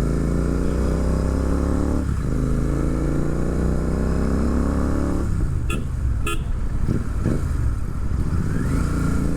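Royal Enfield Continental GT 650's 648 cc parallel-twin engine running through aftermarket Red Rooster stainless-steel exhausts under way, revs rising, dipping at a gear change about two seconds in, rising again, then the throttle easing off about five seconds in. Two short horn toots come around six seconds in.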